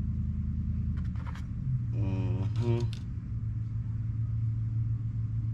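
A steady low mechanical hum, stepping slightly higher in pitch a little under two seconds in. There are a few light clicks about a second in and a brief voice around two to three seconds.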